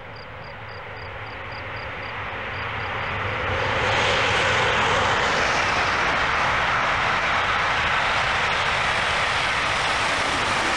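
ICE 1 high-speed electric train approaching and passing at about 250 km/h: a rising rush that grows loud about four seconds in and holds steady as the long trainset goes by.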